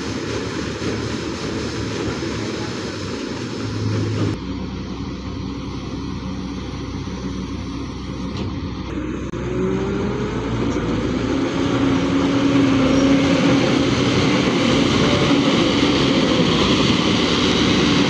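New Holland combine harvester running in a rice field: a steady engine and threshing drone. About ten seconds in it grows louder, with a whine that rises and then holds steady.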